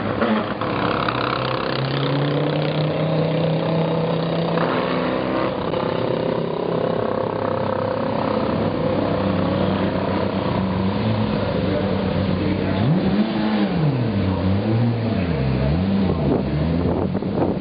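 GT race car engines running at held revs. About two-thirds of the way in, the engine note swings up and down several times, about once a second.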